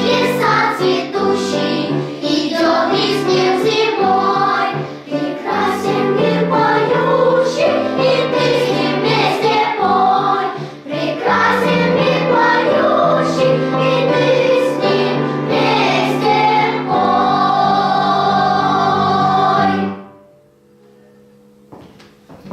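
Children's choir singing, ending on a held final chord about twenty seconds in, after which the sound falls away to quiet room noise.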